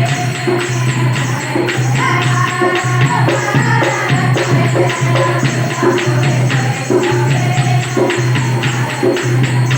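Languriya folk song: voices singing over a fast, even beat of jingling hand percussion and drum.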